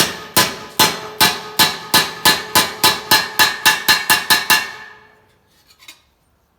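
Hammer blows on a sheet-steel flange, knocking down a tuck to shrink the metal into a curve. The strikes come in a steady run of about sixteen, each with a short metallic ring, getting quicker before they stop about four and a half seconds in, followed by a few light clinks.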